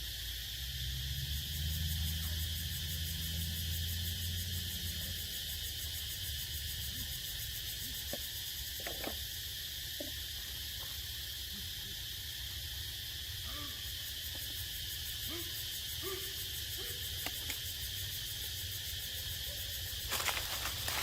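Steady high-pitched drone of forest insects, with a low hum over the first few seconds and a few faint short chirps and clicks in the middle.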